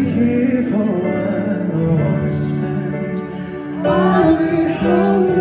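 Male voice singing a slow pop ballad live, with long held notes over keyboard accompaniment.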